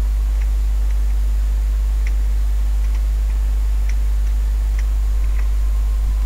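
Steady low electrical hum with faint, irregularly spaced clicks over it, the kind a computer user makes while working.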